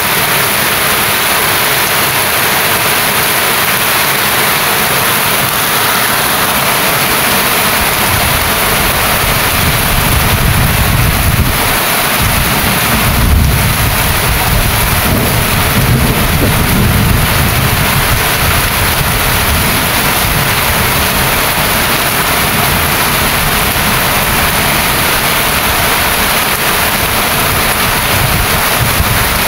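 Heavy rain falling, a steady loud hiss. A low rumble swells up about a third of the way in and dies away several seconds later.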